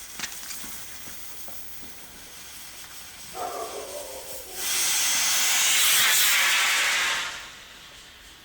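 Small shotgun-shell rocket motor firing: a short sputter about three seconds in, then a loud, steady hiss of the burn for about two and a half seconds before it cuts off.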